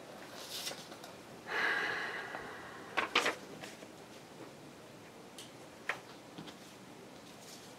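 Paper and craft pieces being handled on a desk: a short rustle about a second and a half in, then a few light clicks and taps.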